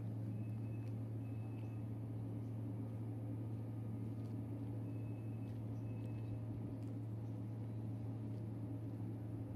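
Steady low mechanical hum of a coal mine's shaft winding machinery, even in pitch and level throughout.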